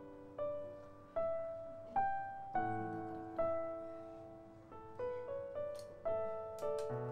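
Background piano music: a slow melody of single struck notes, about one to two a second, each ringing and fading.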